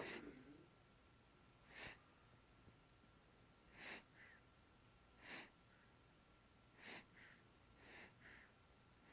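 Quiet, heavy breathing of someone falling asleep: short hissing breaths about every one and a half to two seconds, a few followed by a smaller second puff. A brief, louder sound comes right at the start.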